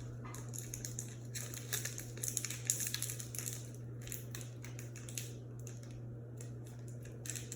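Foil wrapper of a trading-card booster pack crinkling and crackling as it is handled and torn at, in quick irregular crackles that are busiest a couple of seconds in. A steady low hum runs underneath.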